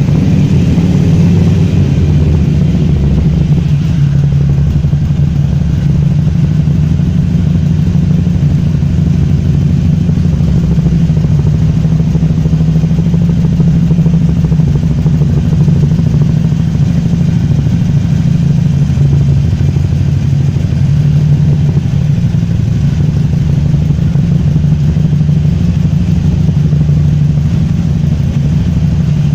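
Harley-Davidson Iron 883's air-cooled V-twin with an open exhaust, idling steadily and loudly.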